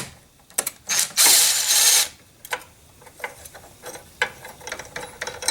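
Ratchet and 10 mm socket clicking as it loosens the nuts on a car battery's hold-down bracket, with a dense run of fast clicking for most of a second about a second in, then scattered clicks and light metal knocks.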